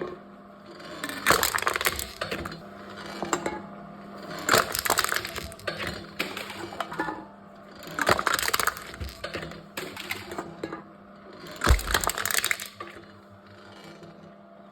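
Aluminium cans crushed one at a time in a crushing machine: four crunching crushes about three and a half seconds apart, the last one with a low thud, over a faint steady hum.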